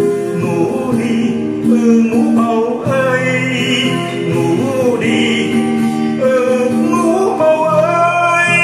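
A man singing a slow Vietnamese song to acoustic guitar, holding long notes.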